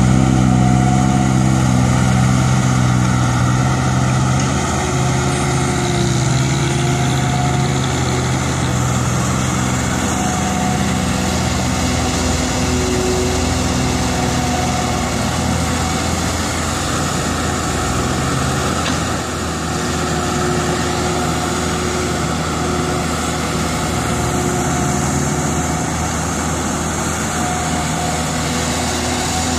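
Diesel engines of a Caterpillar E120B excavator and a six-wheel dump truck running steadily while the excavator digs and loads soil. The engine drone is strongest for roughly the first ten seconds, then eases.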